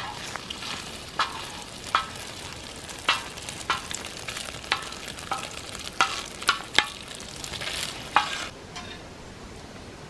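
Metal spatula scraping and clacking against a steel saj pan while stirring food frying with a sizzle over a wood fire. The scrapes come irregularly, about one or two a second, and stop about eight and a half seconds in.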